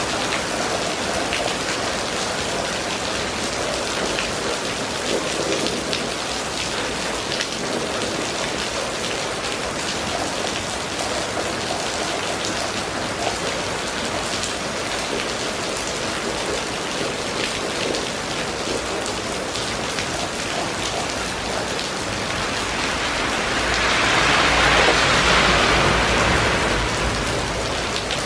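Steady rain falling on a flooded paved street, with fine drop splashes throughout. Near the end the noise swells louder for a few seconds, with a low rumble under it.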